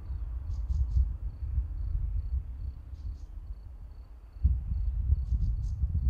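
Forest ambience: a faint high insect chirp repeating evenly, about three times a second, over an uneven low rumbling noise, with a few short clusters of high ticking calls.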